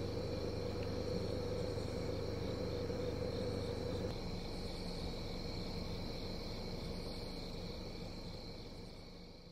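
Crickets and other insects chirping in a steady evening chorus over a low, steady hum that eases off about four seconds in; the whole fades out near the end.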